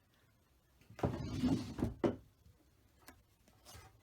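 Things being handled and moved about: about a second of rustling and knocking, ending in a sharp click, then a light tick.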